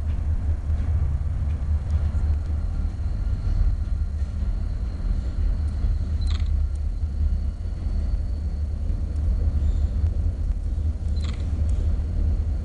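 Steady low rumble of a diesel freight locomotive approaching slowly, with two brief high squeaks about six and eleven seconds in.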